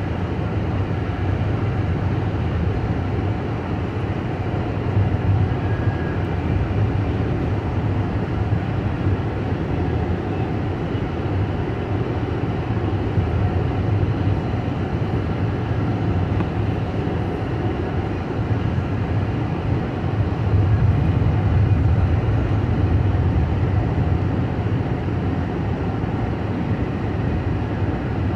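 Steady road noise inside a moving car's cabin: tyres on asphalt and the engine at cruising speed, a low rumble that swells slightly about three quarters of the way through.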